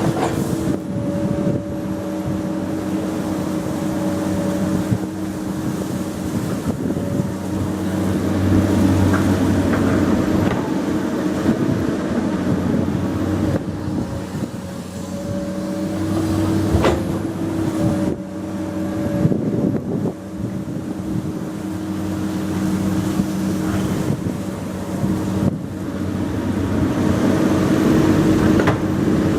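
Komatsu PC200 hydraulic excavator's diesel engine running steadily, its note strengthening and easing as the machine works. A sharp metallic knock comes about 17 seconds in.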